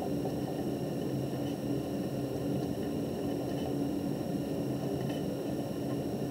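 Steady low hum and hiss of room noise, with a few faint squeaks from a felt-tip marker writing on paper.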